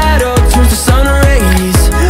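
Background pop music with a steady beat.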